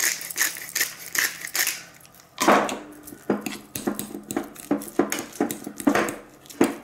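A twist spice grinder cranked over a bowl, grinding in even strokes about two or three a second. After a short pause, a fork scrapes and clinks against a stainless steel bowl as it mashes butter with herbs.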